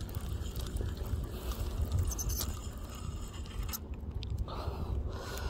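Scrapes and clicks from a spinning fishing reel being handled and turned by hand, over a low wind rumble on the microphone. The clicking stops a little before four seconds in.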